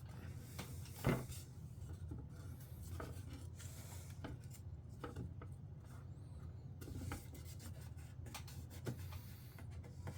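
Paper template being rubbed and pressed down onto thin craft plywood to glue it in place, a soft scraping broken by scattered light taps, the sharpest about a second in, over a steady low hum.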